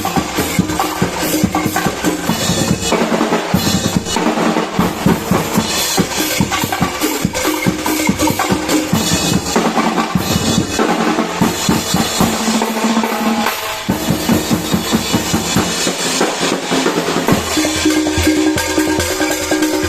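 A drumbeater corps of bass drums and snare drums playing a fast, dense beat with rolls. Near the end, steady pitched music comes in alongside the drums.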